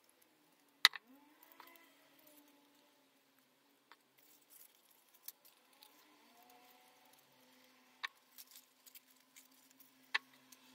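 Metal craft tweezers clicking as they are handled and set down on the table: three sharp clicks, the loudest about a second in, among small ticks and faint rustling of paper parts.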